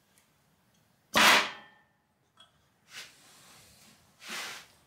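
Blasts of compressed air fed into the brake line port of an Allison TT2220 transmission's brake housing, popping the brake pistons out of their bores; the pistons hit pretty hard. There is a loud pop with a rush of air about a second in, a smaller pop with a short hiss around three seconds, and another burst of air near the end.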